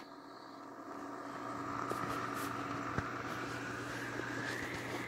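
A steady mechanical hum with a whine that slowly rises in pitch, gradually getting louder, and a few faint clicks.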